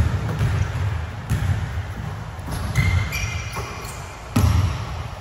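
A basketball bouncing on a hardwood gym floor: a few irregular thuds that echo around the hall, the loudest about four seconds in. A short high squeak comes about three seconds in.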